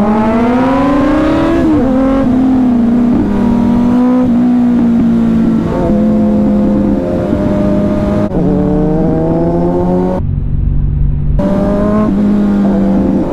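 Kawasaki Z900 inline-four motorcycle engine with a new aftermarket exhaust, under way: the revs climb steeply under acceleration for about two seconds, then drop with an upshift and hold fairly steady with small dips and steps. About ten seconds in the engine sound breaks off for a second, then returns.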